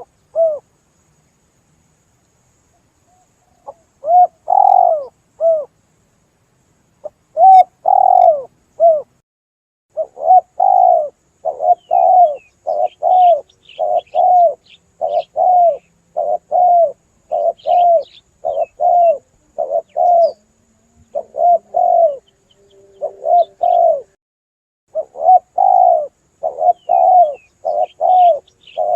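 Spotted dove cooing, a run of short arched coos in phrases. After a pause of about three seconds near the start, the coos come almost without a break from about ten seconds in. Faint high chirps of small birds sound behind it.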